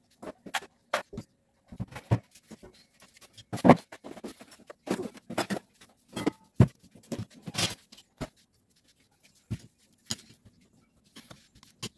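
Irregular clicks, knocks and clinks of metal starter motor parts and hand tools being picked up, turned over and set down on a cardboard-covered workbench, the loudest knocks falling in the middle stretch.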